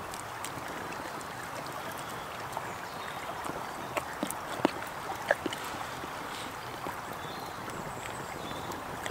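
Steady rushing of a small woodland stream, with a few sharp clicks a little past the middle.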